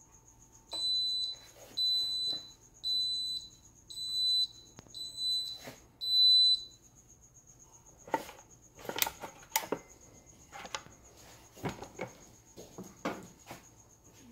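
Waring Pro WWM450 waffle maker's ready signal: six high beeps, evenly spaced about a second apart, telling that the plates are heated and ready for batter. In the second half come scattered clicks and knocks as the rotary unit is handled and its lid is opened.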